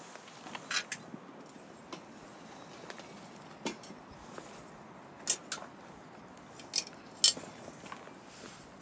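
A handful of sharp metallic clinks, a second or more apart, the loudest in the second half: a wire grill grate and metal tongs being handled over a bucket charcoal brazier.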